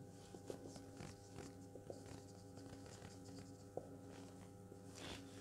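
Faint strokes and light squeaks of a marker writing on a whiteboard, with a slightly sharper tick a little before the four-second mark, over a steady faint hum of room tone.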